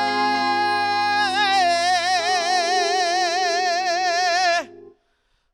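A singer holds a long final note of a worship song over sustained instrumental chords. The note takes on a wide vibrato about a second in. Voice and chords cut off together near the end, leaving a brief silence.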